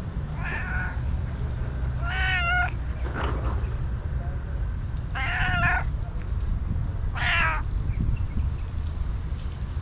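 Tabby cat meowing: four short meows, each about half a second long with a wavering pitch, the first one fainter, spaced a couple of seconds apart.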